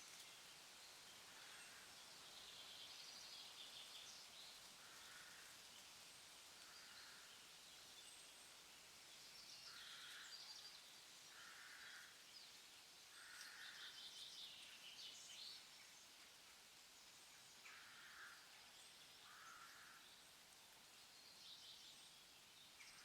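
Faint forest ambience: a bird gives short, repeated mid-pitched calls about once a second in loose runs, while higher, rapid songbird twittering comes and goes over a steady background hiss.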